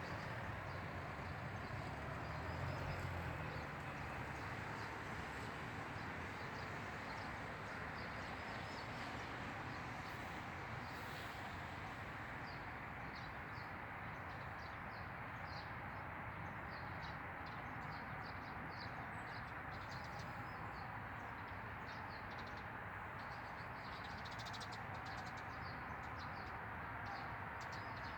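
Small birds chirping, the calls growing busier from about halfway in, over a steady rushing background noise.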